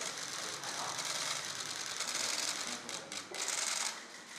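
Many camera shutters firing in rapid, overlapping bursts, a dense clatter of clicks from press photographers shooting a posed handshake, with a short lull about three seconds in.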